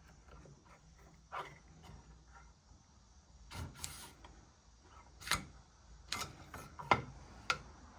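Scattered small clicks and knocks of metal parts and tools being handled while the water pump housing is taken off an outboard motor's lower unit to get at the impeller. The sharper knocks come in the second half.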